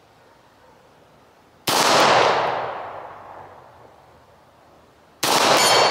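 Two 9mm Beretta 92FS pistol shots about three and a half seconds apart, each a sharp crack followed by a long echoing decay.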